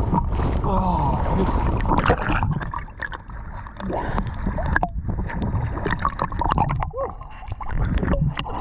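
Lake water sloshing, gurgling and splashing against a GoPro held at the waterline by a swimmer. A heavy low rumble runs under small bubbling sweeps and clicks; the camera's microphone copes poorly in the water.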